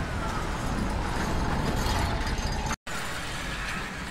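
Town street noise with a steady low vehicle rumble. It breaks off for a split second of dead silence a little under three seconds in, then carries on.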